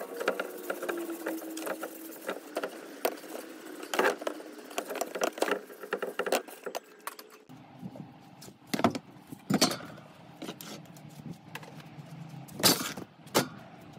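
Metal clinking, tapping and rag rubbing from a bare bicycle wheel being handled and wiped clean, with a quick run of sharp clicks. Halfway through, the sound changes to a low steady hum with a few loud sharp knocks.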